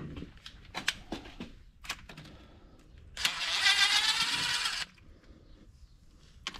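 Cordless DeWalt driver running for about a second and a half, starting about three seconds in, as it backs out a screw from the cover plate over the engine's spark plugs. Its motor pitch rises slightly. Before it there are a few light clicks and knocks of tool handling.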